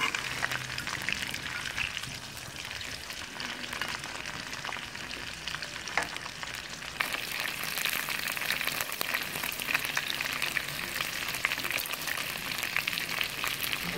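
Whole shell-on prawns sizzling and crackling in hot oil in a wok, the crackle growing busier about halfway through. A spatula scrapes and taps against the wok now and then as it turns them, with a sharp click about six seconds in.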